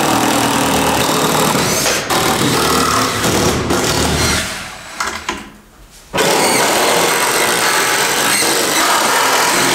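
Cordless drill-driver running, driving screws into metal joist hangers on wooden ceiling joists. The running fades out a little before halfway and starts again suddenly a little after.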